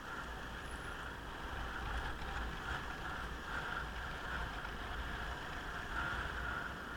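Steady road and wind noise from a motorcycle being ridden: a low rumble with a hiss above it and no distinct engine note.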